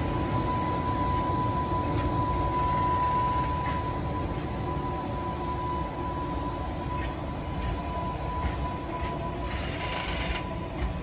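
Container flatcars of a freight train rolling past: a steady low rumble with a few sharp clicks from the wheels. A thin, steady high whine runs over it.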